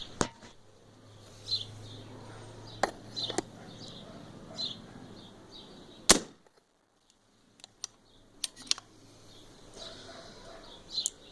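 A bottled, regulated Kalil PCP air rifle in .22 fires a 16-grain pellet: a single sharp shot about six seconds in. Smaller clicks come before and after it.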